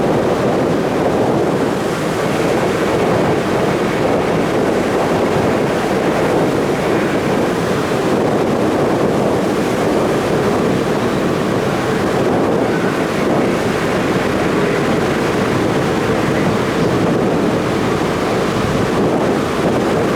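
A ferry under way at sea: a steady rush of water and engine noise, with wind blowing on the microphone.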